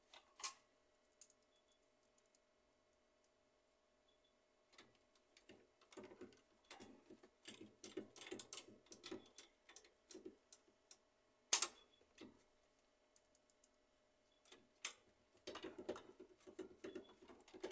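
Hands handling and fitting parts on a laser printer's gear train and metal frame: scattered light plastic and metal clicks and taps, busier in the middle and near the end, with one sharper click about two-thirds through.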